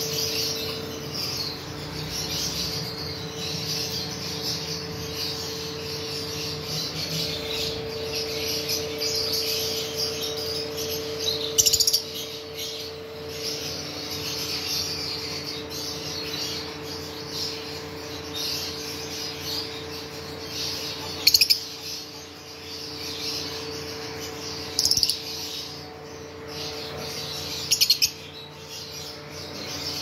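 A group of caged peach-faced lovebirds chattering with continuous high chirping. Four short, much louder shrill calls stand out from the chatter. A steady low hum runs underneath.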